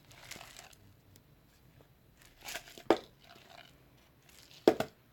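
Plastic snack packaging crinkling and rustling as it is handled, with a few sharp clicks, the loudest about three seconds in and again near the end.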